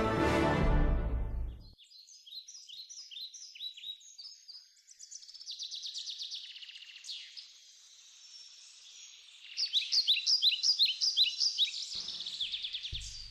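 Music ends in the first second and a half, then small birds sing: series of quick, high, downward-sweeping chirps, busiest and loudest from about ten seconds in. A few low thuds come near the end.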